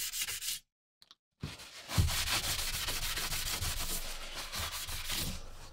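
Sandpaper rubbed by hand over a steel hatchet head: a dry, scratchy rubbing. It breaks off for about a second near the start, then carries on steadily for about four seconds.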